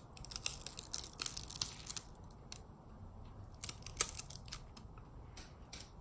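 A layer of cured resin being peeled off an encaustic wax painting, crackling and snapping as it comes away. The crackles come thick and fast for the first two seconds, then scattered, with the loudest snap about four seconds in. The resin peels off because it has not stuck to the wax beneath.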